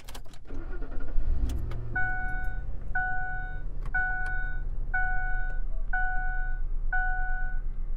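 A few key clicks, then about a second in the 2004 Ford F-150's 4.6-litre V8 starts and runs at a low, steady idle. Over it a dashboard warning chime dings six times, about once a second.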